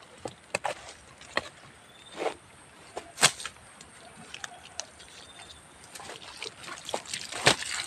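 A small hand hoe chopping and scraping in the soil with a few sharp knocks, the loudest about three seconds in. Near the end, water from a garden hose starts splashing and trickling onto the ground.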